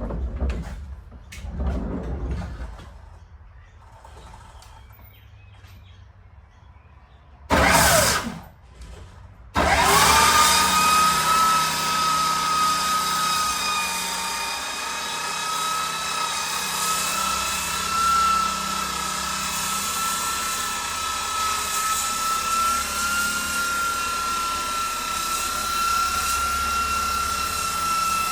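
Electric power sander for decking, switched on about ten seconds in, whining up to speed and then running steadily. Before it starts there are a few knocks and one short, loud burst.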